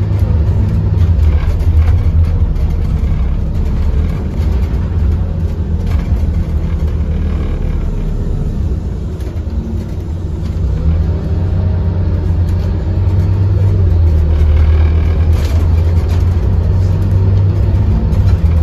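Cabin noise aboard a Scania OmniCity N230UD double-decker bus on the move: a steady low diesel engine and drivetrain drone with road noise. It eases off about halfway through and then builds again.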